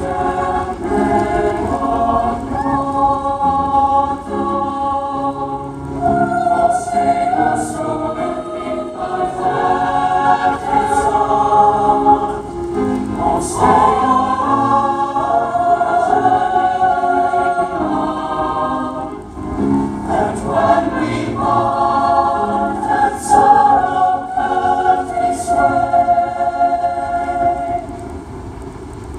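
Large mixed-voice choir singing in sustained chords, phrase after phrase, growing softer near the end.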